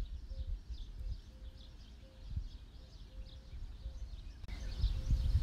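Small birds chirping faintly and repeatedly over a low, uneven rumble of wind on the microphone. The wind and chirping grow louder near the end.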